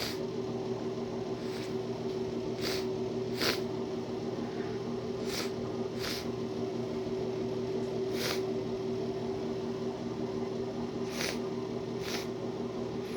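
A person with a thick, running nose sniffing wetly through mucus-filled nostrils, about eight short sniffs at irregular gaps, over a steady electrical hum.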